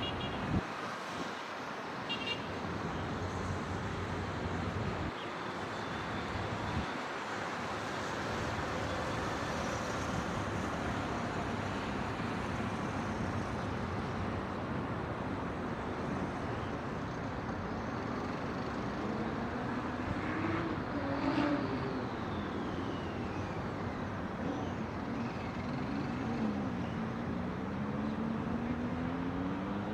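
City road traffic: a steady hum of cars and heavier vehicles, with one engine's note rising and falling in pitch in the second half.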